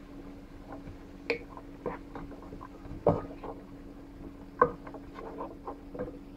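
Wooden spoon stirring diced carrots in a white-lined frying pan: scattered light knocks and scrapes against the pan, the loudest about a second, three seconds and four and a half seconds in, over a steady low hum.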